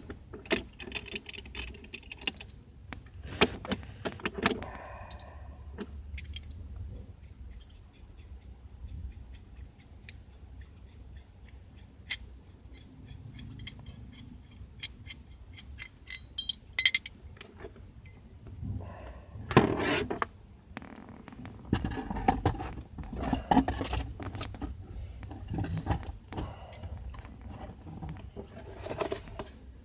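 Metal hand tools and parts being handled: clinking and rattling with scattered knocks, some louder clatter in the second half.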